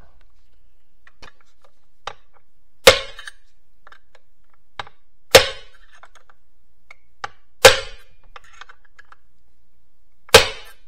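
Four hard metal-on-metal hammer blows, about two and a half seconds apart, each ringing briefly, with a few light taps between. They come from hammering on the roll pin in the shifter shaft of a Getrag HM290 five-speed manual transmission to drive it out, and the pin is not budging.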